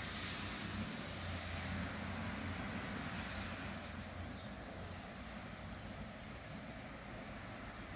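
Outdoor street ambience: the hiss and low rumble of traffic on wet roads, swelling over the first few seconds and easing off, with a few faint high chirps, likely birds.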